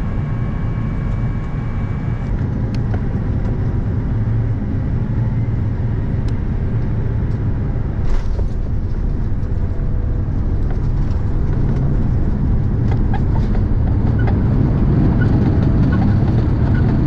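Jet airliner cabin noise: a steady low rumble from the engines and airframe, growing a little louder over the last few seconds.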